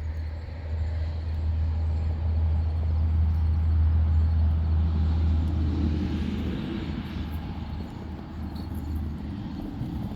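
Low, steady rumble of a motor vehicle's engine, swelling to its loudest about four seconds in and then fading.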